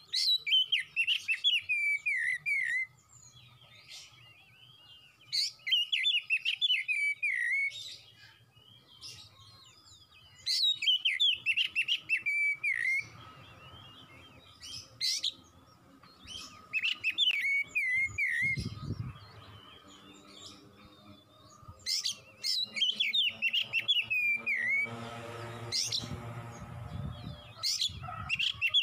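Oriental magpie-robin singing: a rapid, warbled phrase repeated every few seconds, each phrase sliding down in pitch at its end. A brief hiss comes near the end.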